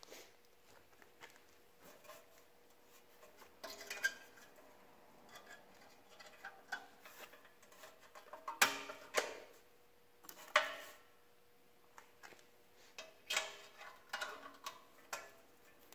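Small metallic clicks and rattles of steel exhaust springs being stretched and hooked onto a snowmobile's exhaust pipe, with several sharper clanks in the second half.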